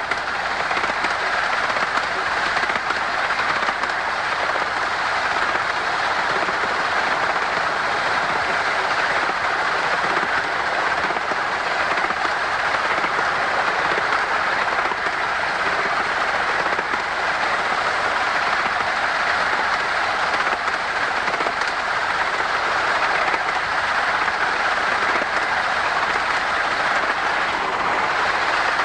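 RH&DR No.5 Hercules, a 15-inch gauge 4-8-2 steam locomotive, running steadily at speed on the line; a continuous, even running sound of the engine and train on the track.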